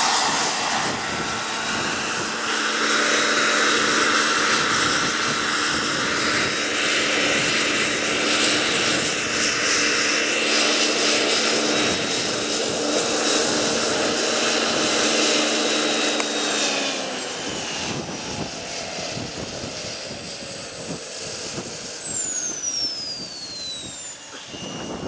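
Small turbine engine of a radio-controlled CH-53 scale helicopter running under load with its rotor turning as the model hovers low and lands. About 17 seconds in the sound drops and the turbine's high whine starts to fall in pitch, then falls steeply near the end as the engine spools down.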